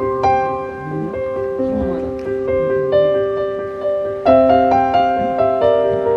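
Piano music: a slow melody of single notes over held chords, with a new chord struck about four seconds in.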